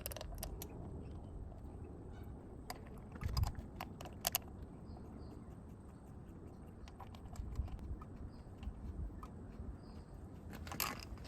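Scattered light metal clicks and taps as the small bolts of a motorcycle's oil filter cover are handled and threaded in by hand, with a few sharper clicks a few seconds in.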